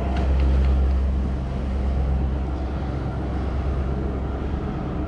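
A boat engine running steadily, a low even hum that holds through, with a few light clicks near the start.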